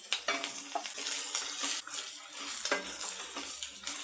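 Wooden spatula stirring and scraping potatoes, peanuts and green chillies in a wok, with irregular scrapes and knocks against the pan. A steady sizzle of frying in ghee runs underneath.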